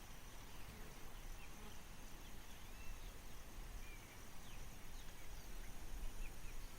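Faint birds chirping, short scattered calls over a steady low rumble of outdoor background noise.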